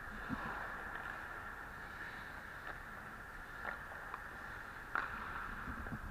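Steady hiss of ice skates scraping and gliding on a hockey rink, with a few short sharp clacks of sticks and puck on the ice.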